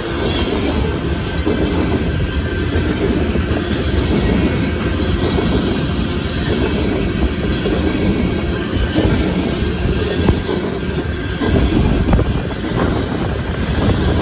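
Freight train of coal cars rolling past: steady rumble and rattle of steel wheels on the rails, with a few sharper clicks in the second half.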